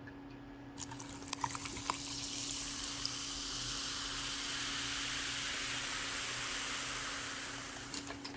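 Strong Zero chu-hi poured from a can into a glass of ice: a few crackling clicks about a second in, then a steady fizzing pour that fades near the end.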